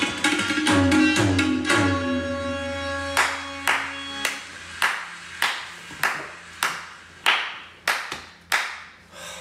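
Tabla played fast, the bayan's bass strokes gliding down in pitch and settling on a held low note about two seconds in. Then a slow, even run of single hand claps, about ten of them, a little over one a second.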